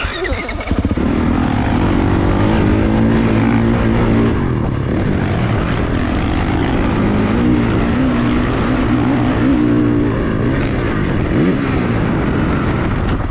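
Dirt bike engine heard at close range from on the bike, coming up to speed about a second in and then rising and falling in pitch as the rider accelerates, shifts and eases off along a rutted dirt trail.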